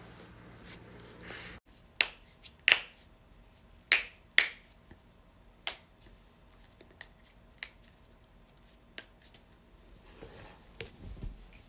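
Human joints cracking: a series of sharp, separate pops at irregular intervals, the loudest four in the first half, then fainter ones.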